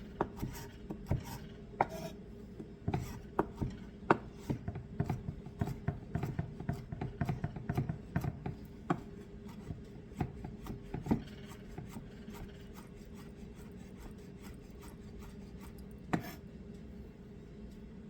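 Knife mincing on a cutting board: quick, uneven taps of the blade, thick for the first ten seconds or so, then thinning to a few stray taps.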